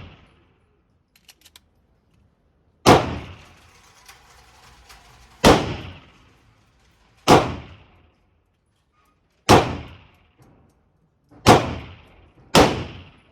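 PSA 5.7 Rock pistol, chambered in 5.7x28mm, fired six times in slow, single shots one to two and a half seconds apart, each crack trailing off in a short echo.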